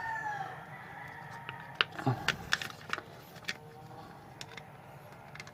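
Scattered light clicks and taps of small parts being handled, with the tail of a rooster's crow falling away at the very start.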